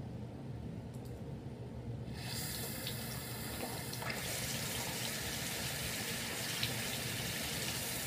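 Water tap turned on about two seconds in, then running steadily, refilling the toys' bath basin.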